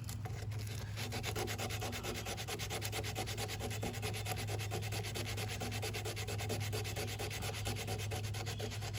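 Sandpaper rubbed by hand over cured Bondo body filler on a vehicle's sheet-metal panel: steady, continuous sanding strokes, levelling the filler down over patched rivet holes.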